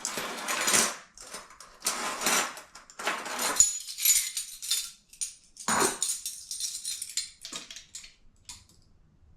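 Kitchen items being handled and set aside on a counter: a run of clinks, rattles and knocks in short bursts for about seven seconds, then nearly quiet near the end.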